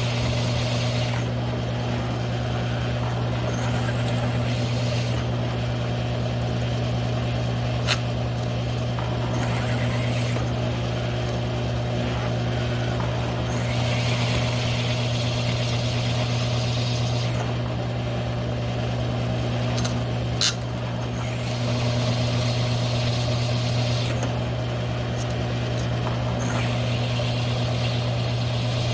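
Mill-drill motor running steadily with a constant hum while a one-inch hole saw cuts into 3/8-inch steel plate. The cutting hiss swells and fades every several seconds, with a sharp tick about eight seconds in and another about twelve seconds later.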